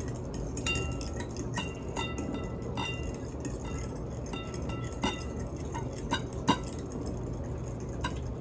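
Eggs being beaten in a bowl: the utensil clinks against the bowl at an uneven rate of about one or two strikes a second, each strike ringing briefly. A steady low hum runs underneath.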